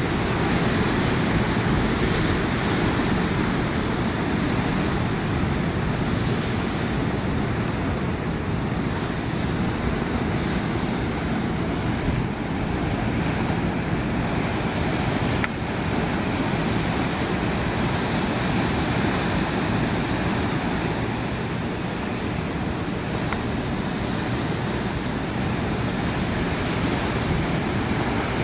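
Ocean surf washing onto a sandy beach: a steady rushing noise, with wind buffeting the microphone.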